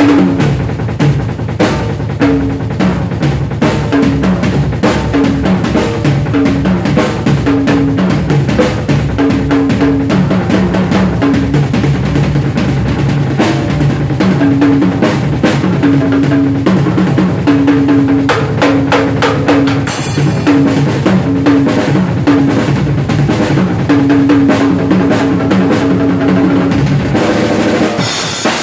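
Acoustic drum kit played in a fast, busy free groove on bass drum, snare, toms and cymbals, with cymbal crashes about twenty seconds in and again near the end.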